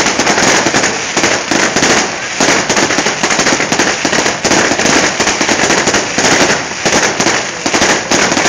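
Fireworks display: a dense, unbroken run of bangs and crackles from several shells bursting at once.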